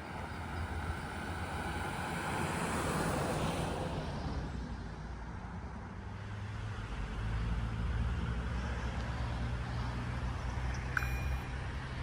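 Road traffic passing over the level crossing: a car sweeps past a couple of seconds in, then a heavier vehicle's low engine hum takes over. Near the end the crossing's electronic warning bell starts ringing in short repeated tones, signalling that a train is approaching.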